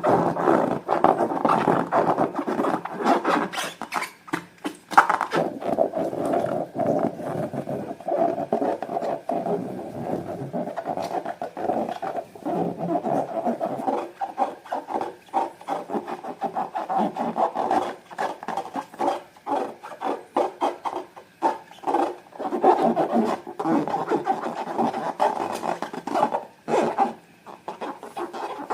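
Slime being squished, stretched and kneaded by hand: a continuous wet, sticky crackling full of small pops, with brief lulls.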